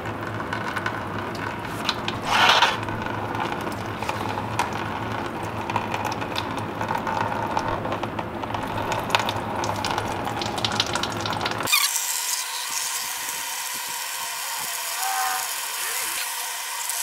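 Engine coolant draining from the radiator's drain petcock, running through a funnel into a plastic drain pan, with scattered clicks and handling noise from the petcock and funnel. About twelve seconds in, the sound turns abruptly to a thin hiss.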